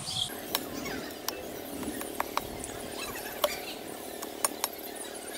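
A machete blade striking a green branch laid on a log: a series of about seven light, irregular chopping knocks as the branch is cut and trimmed.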